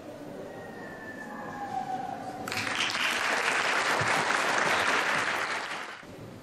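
Audience applauding, starting abruptly about two and a half seconds in and dying away about a second before the end.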